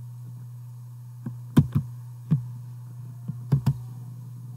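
About half a dozen irregular clicks and taps at a computer, the loudest about one and a half seconds in, over a steady low hum.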